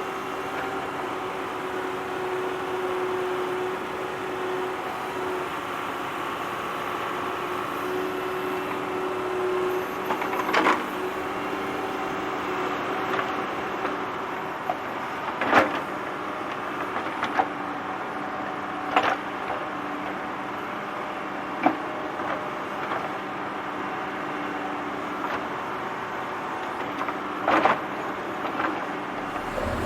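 A tractor engine running steadily as it digs, with a handful of sharp knocks from the digging work scattered through the second half.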